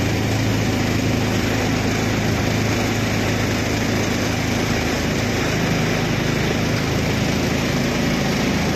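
A small boat's engine running steadily under way, an even, unchanging drone.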